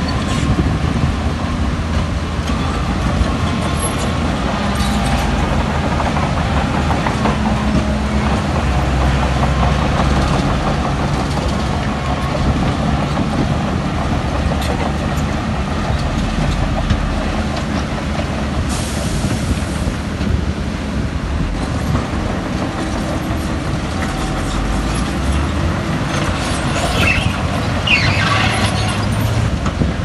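Diesel engine of heavy earthmoving machinery running steadily under load, its pitch shifting now and then, with a few short high metallic squeaks near the end.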